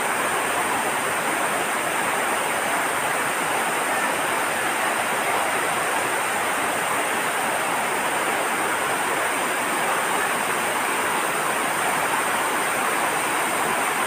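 Small waterfall cascading over rock ledges: a steady, unbroken rush of falling and splashing water.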